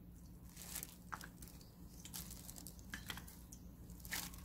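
Faint, scattered light clicks and taps of a metal measuring cup and a wooden spoon as anchovy fish sauce is poured and spooned into a stainless steel mixing bowl, over a steady low hum.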